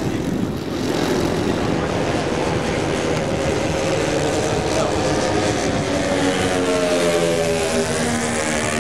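Engines of a large-scale radio-controlled B-17 bomber model running at low throttle as it lands and rolls out, with several engine tones sliding down in pitch over the second half.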